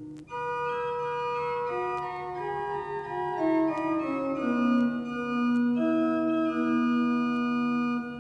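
Organ music: slow held chords over a sustained low bass note, with a middle voice stepping down note by note in the first half.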